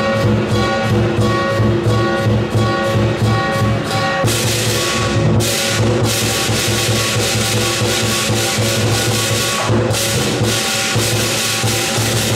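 Southern lion dance percussion: the big lion drum beats a steady rhythm under ringing gong and cymbals. From about four seconds in the cymbals crash continuously, with two short breaks.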